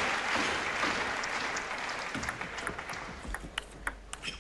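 Arena crowd applauding after a table tennis point, the clapping fading away over about three seconds. Then a few sharp ticks of a celluloid table tennis ball bouncing as play gets ready to resume.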